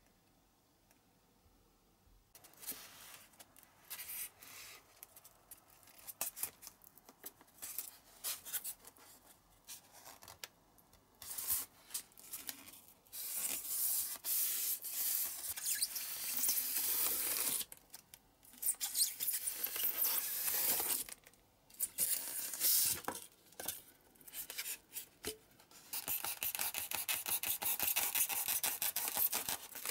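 Expanded polystyrene foam rubbing, squeaking and crunching in irregular stretches as pieces are pressed together and cut with a snap-off utility knife. The sound starts about two seconds in, with long scratchy runs toward the end while the blade goes through the foam.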